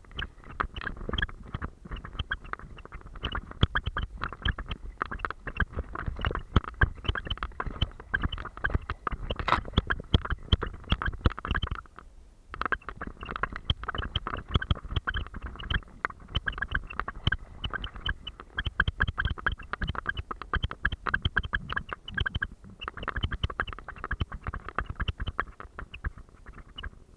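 Water splashing and sloshing around a terrier swimming with a camera strapped to its back, a dense, irregular run of splashes and knocks from its paddling, muffled by the camera's waterproof case. The splashing drops out briefly about twelve seconds in and again a little past twenty-two seconds.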